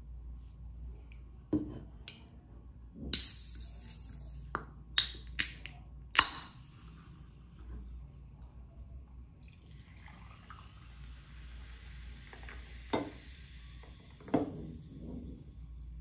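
A can of fizzy drink being handled, opened and poured over ice into a glass: sharp clicks and a short hiss in the first half, then the steady fizz of the carbonated drink with a few clinks of ice near the end.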